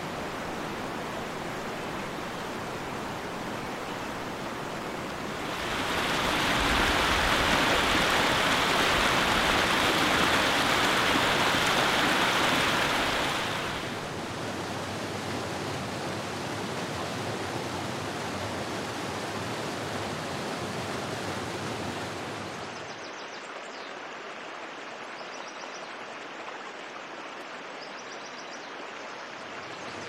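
Rushing water of waterfalls and a mountain stream over rocks, a steady rush. It grows louder and fuller for about eight seconds in the middle, then drops back, and near the end it turns to a softer, thinner flow.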